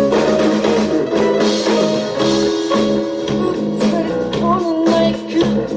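Rock band playing an instrumental passage with electric guitar, bass and drums over a steady beat.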